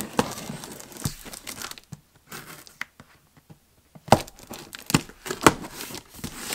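A knife slicing packing tape on a cardboard box, with scraping, tearing and crinkling of the tape and cardboard. It goes quieter about midway, then sharper taps and scrapes follow near the end.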